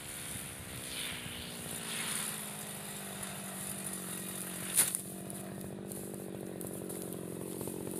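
Backpack brush cutter's small petrol engine dropping from cutting speed and settling into a steady idle. One sharp click sounds about halfway through.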